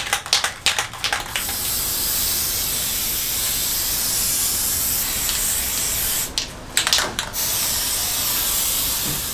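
Aerosol can of Kwik Grip spray contact adhesive rattling as it is shaken, then spraying in a long steady hiss. About six seconds in the spray stops briefly with a few rattling clicks, then a second steady spray runs on until near the end.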